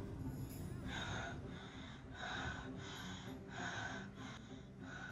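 A boy panting heavily, out of breath from exertion: quick, loud breaths about every three-quarters of a second, starting about a second in.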